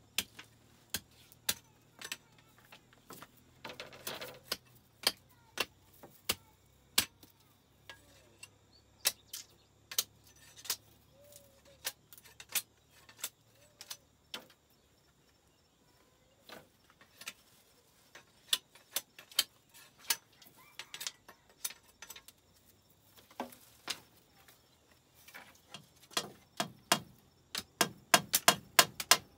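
Sharp wooden knocks as split bamboo slats are handled and fixed into a bamboo wall frame. They come scattered, about one a second, then turn into a quick, louder run of hammer blows near the end.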